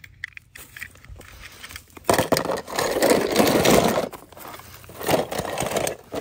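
Scraping and crackling handling noise from die-cast toy cars and a plastic tub being handled, with small clicks throughout. It is loudest from about two to four seconds in, with another burst near the end.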